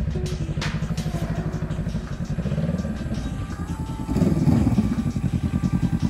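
Honda Rebel motorcycle's parallel-twin engine running at low speed with an even exhaust beat. About four seconds in it grows louder and the pitch shifts as a bike rides up close.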